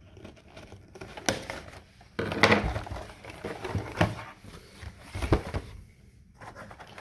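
A folding pocket knife slitting packing tape on a cardboard case, then the cardboard flaps being pulled open: rough scraping and rustling of cardboard with several sharp knocks and taps as the box is handled.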